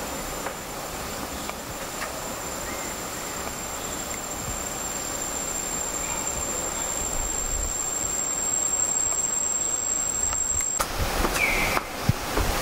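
A steady, high-pitched insect call, as of a cricket or cicada, over a rushing background noise that slowly grows louder. Both stop suddenly near the end.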